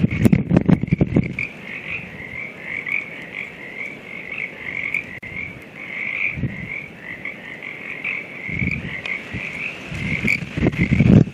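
Chorus of frogs croaking continuously in a steady, pulsing mass, with gusts of wind buffeting the microphone at the start, twice in the middle and again near the end.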